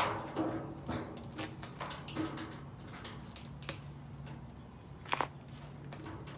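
Scattered knocks, taps and scrapes as a wooden honey frame is handled and set into the basket of a manual honey extractor. The sharpest knock comes right at the start and a ringing one about five seconds in, over a steady low hum.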